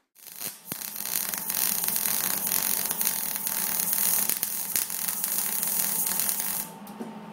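MIG welder arc crackling and sizzling steadily as a bead is run along a patch of thin 22-gauge sheet steel. The arc stops about six and a half seconds in.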